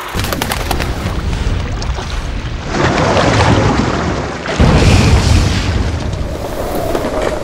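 Sound-designed soundtrack: a dense low rumble with swelling noise, a sudden heavy boom about four and a half seconds in, and a held mid-pitched tone coming in near the end.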